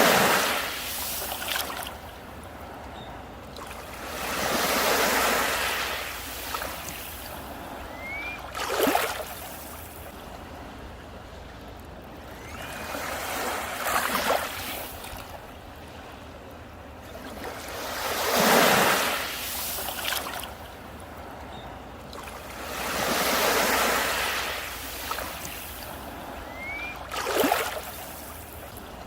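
Sea waves breaking on a beach, the surf swelling and falling back about every four to five seconds, seven surges in all.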